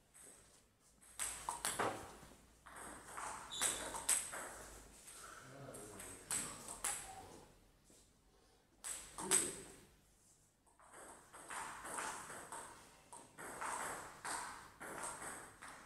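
Table tennis ball bouncing, a scattered, irregular series of light clicks.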